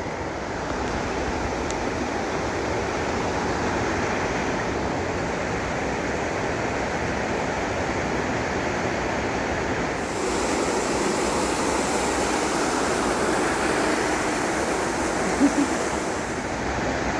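Steady rush of water flowing through a cave, which grows brighter and a little louder about ten seconds in. Two short sharp knocks come near the end.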